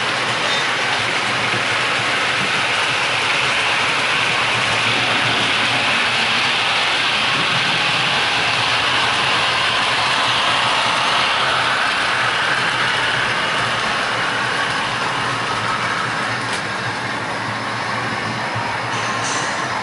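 Model diesel trains running on a model railway layout: a steady engine-like running noise that swells around the middle as a model Class 108 diesel multiple unit passes close by, then eases off.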